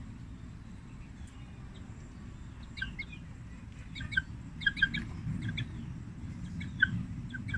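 Short, high bird chirps: one or two about three seconds in, then quick clusters of them through the second half, over steady low background noise.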